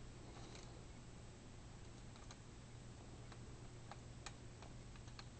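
Near silence: low room hum with a few faint, scattered clicks.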